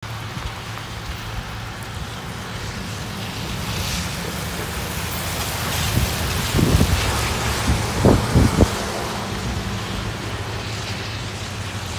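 Steady rain and wind noise, with a pickup truck towing a trailer passing close by on the wet road between about six and nine seconds in. Its tyres hiss, and several low thumps come as it goes by.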